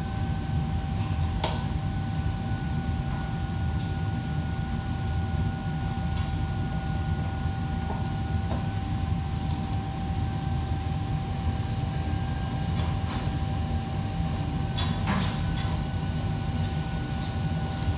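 Steady low hum of running kitchen machinery with a constant thin whine over it, and a few light clicks and clatters of things being handled, the loudest about a second and a half in and about fifteen seconds in.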